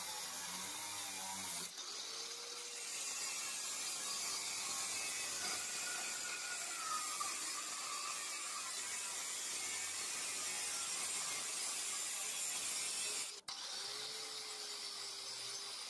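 GRAND angle grinder with a thin cutting disc cutting through rusty steel angle, a steady high grinding hiss. About 13 seconds in it breaks off abruptly and gives way to the grinder running an orange cup-shaped attachment against a steel strip, with a steady motor whine under the rubbing.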